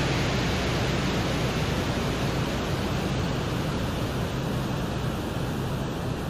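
A steady, rushing noise, strongest in its low end, presented as the Soviet Venera 14 lander's 1982 recording of sound on the surface of Venus.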